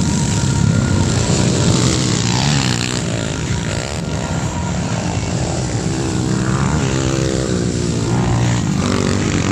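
Several small underbone race-motorcycle engines revving hard, overlapping and rising and falling in pitch as the bikes accelerate and back off around the dirt track.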